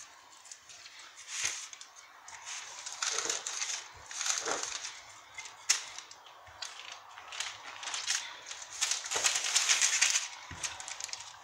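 Wooden rolling pin rolling out dough on a sheet of baking paper: repeated rustling, scraping strokes of the paper against the counter, with a few sharp knocks.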